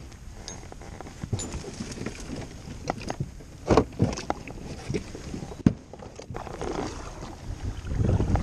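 Scattered knocks, clunks and scrapes as a person climbs aboard a sit-on-top fishing kayak from a gravel shore and pushes off, the loudest knocks about four seconds and just under six seconds in. A low rumble builds near the end.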